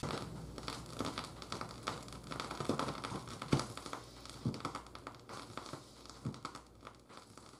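Vinyl record surface noise: a Shure cartridge's stylus tracking a spinning record, giving irregular crackles and pops over a low hum, fading away gradually.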